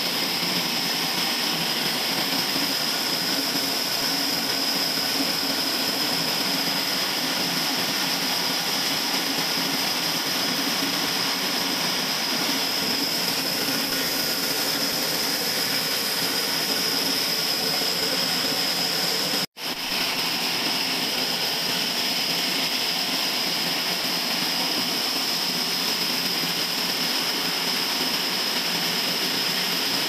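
Sawmill band saw cutting lengthwise through a large log: a steady mechanical noise with a high-pitched whine. It cuts out for an instant about two-thirds of the way through.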